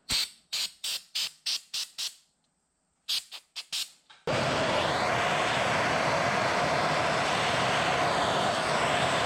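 An aerosol spray can is sprayed in a quick string of short bursts, then a few more after a brief pause. About four seconds in, a handheld MAP-gas torch comes on suddenly and burns with a loud, steady hiss.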